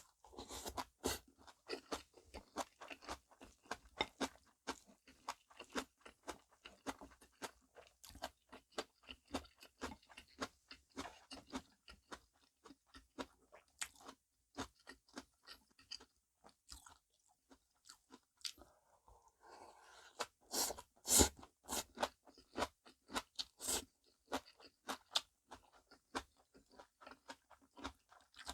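Chewing and crunching of namul bibimbap, a quick run of small wet clicks, with a short lull about two-thirds of the way through and a few louder crunches just after.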